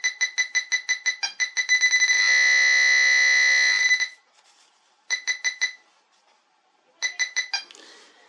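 Quest XPointer Max pinpointer beeping at a half penny coin brought to its tip: rapid electronic beeps quicken and merge into a steady tone for about two seconds, then stop. Two short runs of quick beeps follow as the coin passes near it again. This is its non-ferrous target tone.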